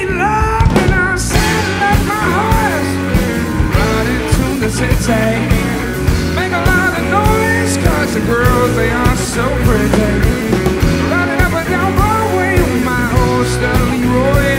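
Live country-rock band playing an instrumental stretch: a lead electric guitar line with bending notes over drums, bass guitar and keyboards.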